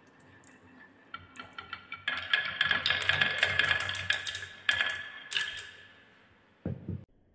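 Glass marbles rolling down a slatted wooden marble-run slope and clacking against each other as they pile up at the bottom. It is a dense, ringing clatter that starts about a second in, is loudest in the middle and dies away, followed by one dull thump near the end.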